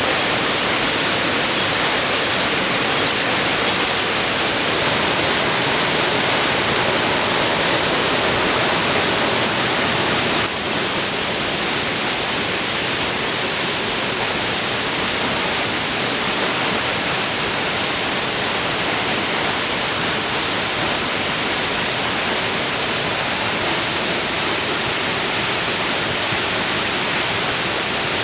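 Waterfall rushing: a loud, steady wash of falling water that drops slightly in level about ten seconds in.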